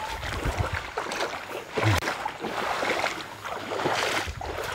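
Footsteps squelching through wet mud and shallow puddles, with a few irregular low thumps.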